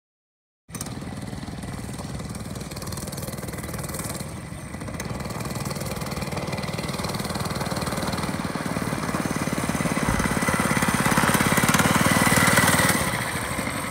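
Gas mini bike's small single-cylinder engine running as it rides across gravel, starting suddenly under a second in and growing louder as it approaches, peaking as it passes close about twelve seconds in, then dropping off.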